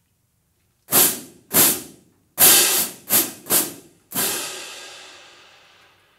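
Marching band cymbal line crashing their hand cymbals together in unison. A silent second is followed by six crashes in an uneven rhythm; the last is left ringing and fades out over about two seconds.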